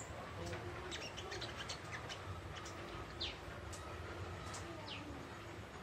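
Young spiderhunter (sogok ontong) twittering softly, with scattered short high chirps and a couple of quick falling notes over a faint steady low hum.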